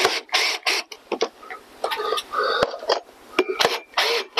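Irregular clicks and knocks from a metal wall-mount bracket and a cordless drill being handled as hex-head screws are set to be tightened into the timber fascia.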